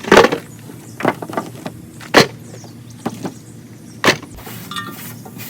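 Pieces of cut oak firewood knocking as they are set down or handled: about five sharp knocks roughly a second apart.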